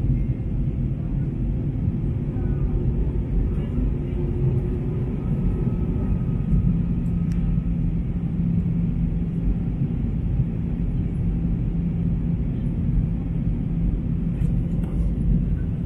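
Steady low rumble of engine and airflow noise inside a jet airliner's cabin during the descent on approach to landing. A steady low hum joins about six and a half seconds in.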